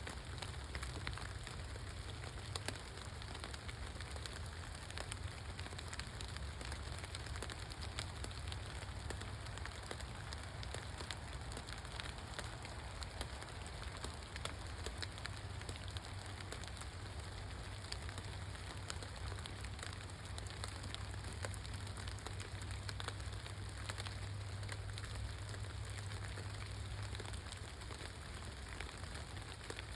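Steady rain falling, with many small drop impacts ticking over a continuous hiss and a low rumble underneath.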